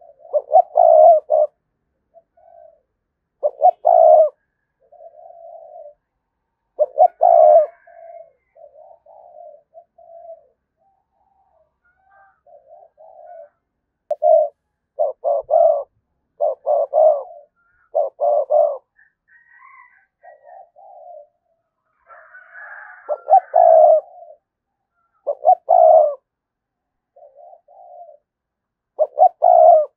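Spotted dove cooing over and over: groups of low, hooting coos separated by short pauses, the 'gù' coo of a decoy bird used to call in wild doves.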